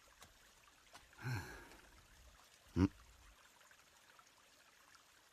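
A person's breathing: a soft, breathy sigh about a second in, then a short low gasp near three seconds, otherwise quiet.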